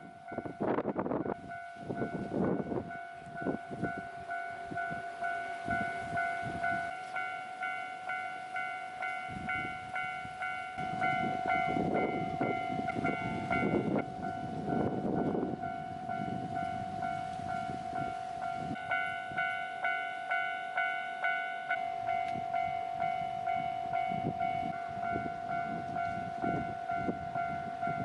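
Japanese railway level crossing warning bell ringing its repeated electronic 'kan-kan' alarm at a steady beat, with a train's rumble swelling and fading over it, loudest about halfway through.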